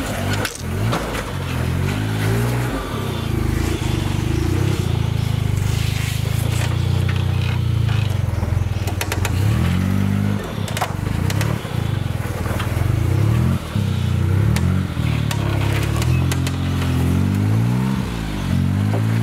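Modified Suzuki Jimny JA11's engine running at low speed and revving up and easing off again and again as it crawls over boulders, with scattered knocks and scrapes.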